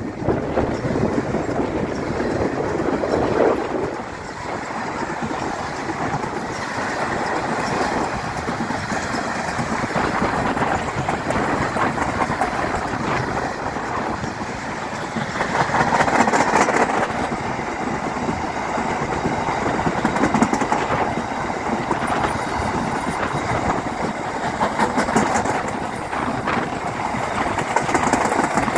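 A freight train's wagons passing close by at speed: a steady rumble and clatter of steel wheels on the rails, swelling louder twice, about halfway through and again a few seconds later.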